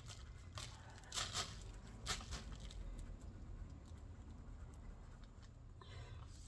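Hands digging through loose potting soil in a fabric grow bag, rustling and scraping, with a few short crunches about a second or two in as the soil is pulled apart.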